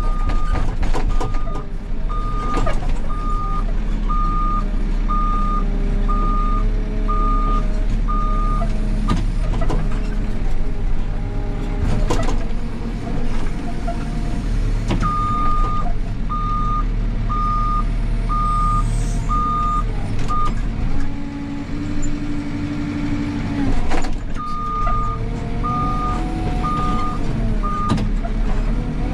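Backhoe loader's diesel engine running and changing speed as it works, with its reversing alarm beeping about once a second in three runs as the machine backs up. A few sharp knocks sound in between.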